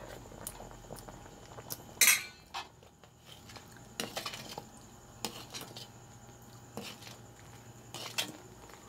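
Metal utensil clinking against a cooking pot: scattered separate clinks and light knocks, the loudest about two seconds in with a short ring.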